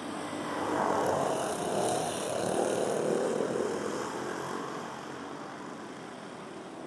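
A pack of racing go-karts with 5 hp Briggs & Stratton engines passing close by, loudest from about a second in until three and a half seconds, then fading as they pull away.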